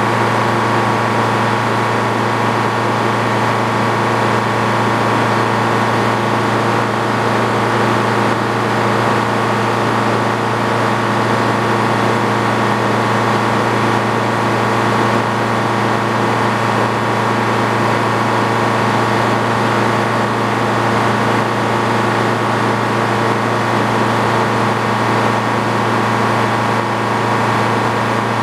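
An engine running a sawmill at a steady, unchanging speed.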